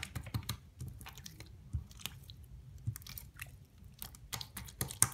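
Thick clear slime being pressed and squeezed by hand against a flat surface, making irregular sticky clicks and pops that come faster near the end.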